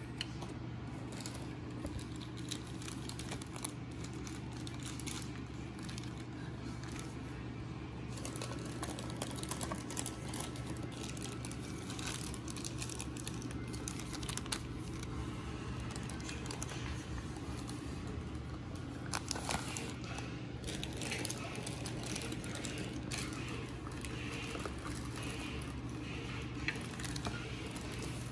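Clear plastic bags of model-kit parts crinkling and crackling as they are handled, in short irregular crackles that get busier in the last third, over a steady low hum.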